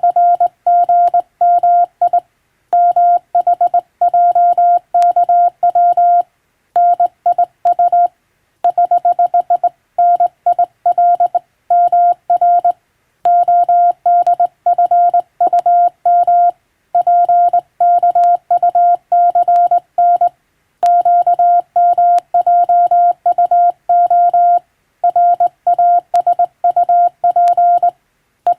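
Morse code sent on a telegraph key, heard as a steady single-pitched beeping tone keyed in dots and dashes. The characters come in groups separated by short pauses, in English-text telegram sending practice, with a faint click now and then.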